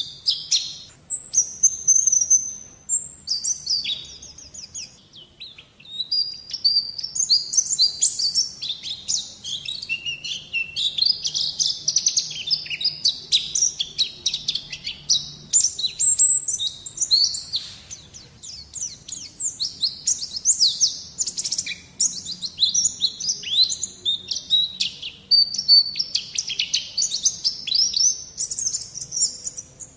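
White-eye (pleci) song: a long, continuous run of fast, high twittering and warbling phrases with no real pauses.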